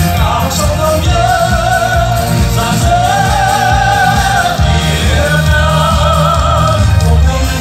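Live stage music played loud over a PA system: a singing voice holds long notes with vibrato over a heavy, pulsing bass.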